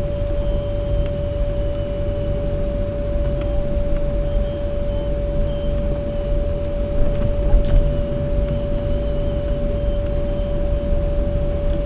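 Low, steady rumble of a vehicle moving through town, with a single high whine held at one pitch throughout.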